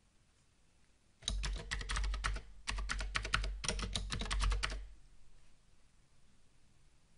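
Typing on a computer keyboard: a fast run of keystrokes starting about a second in, in a few quick bursts with short pauses, stopping about five seconds in.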